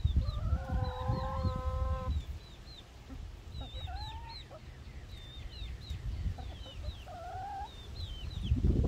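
Backyard hens calling: a long drawn-out call for about the first two seconds, then shorter calls around four seconds in and near the end, with short high chirps throughout.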